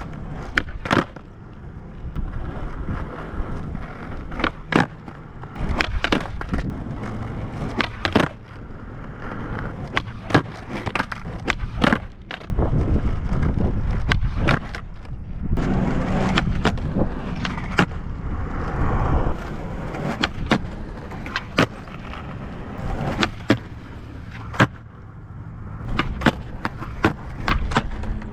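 Skateboard on flat ground: wheels rolling on pavement with a steady rumble, broken by many sharp pops and clacks as the tail snaps and the board lands during flip-trick attempts.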